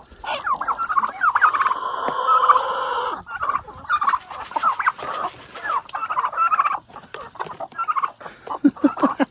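A flock of chickens and turkeys calling over one another while feeding on scattered scratch grain, many short overlapping calls with no pause.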